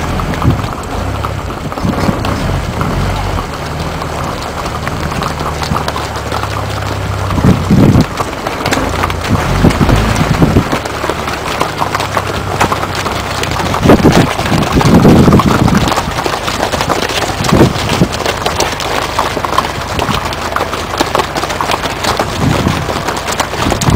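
A herd of horses walking past on an asphalt road, many hooves clopping unevenly. A car engine idles low underneath for the first several seconds, and a few louder low rumbles come through later.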